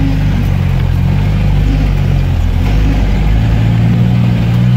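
V8-swapped UAZ off-roader's engine running, heard from inside the cab. The revs ease off and then climb again toward the end.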